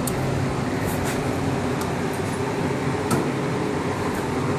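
Steady background hum with a few faint, light metal clicks as the cotter pin is worked out of the Gator's front axle nut.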